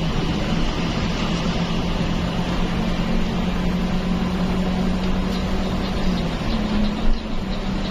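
Steady drone of a bus engine and tyre/road noise heard inside the cabin while cruising on a highway. The engine hum steps slightly higher in pitch about six and a half seconds in.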